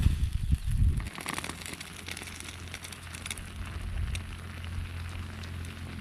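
A pan of food boiling in chili-garlic sauce, bubbling and sizzling steadily with scattered sharp crackles. A loud low rumble covers the first second.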